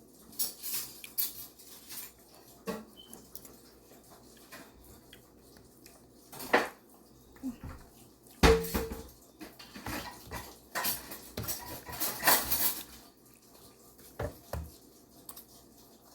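Cutlery clinking and scraping against dishes during a meal, in scattered short clicks, with one heavier knock about eight and a half seconds in.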